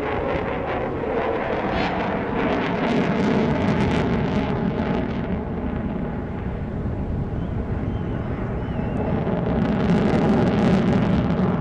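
Jet aircraft flying overhead, a continuous engine rush that grows louder near the end.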